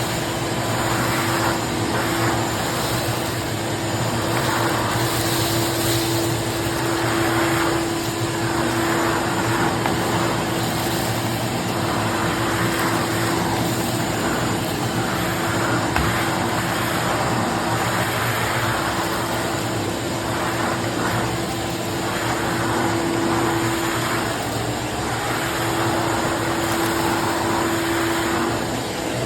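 Craftsman CMXEVBE17595 16-gallon wet/dry shop vac running steadily with a constant motor whine, the rush of air through the hose swelling and easing every second or two.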